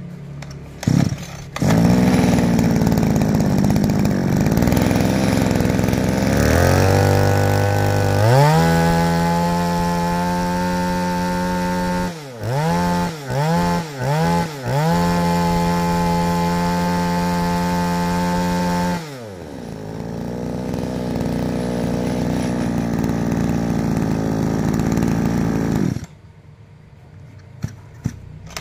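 Komatsu Zenoah 261 brush cutter's small two-stroke engine, pull-started and catching about a second and a half in. It idles, then is revved up to full throttle. It is blipped off and on three times, held at high revs, dropped back to idle, and cuts off near the end.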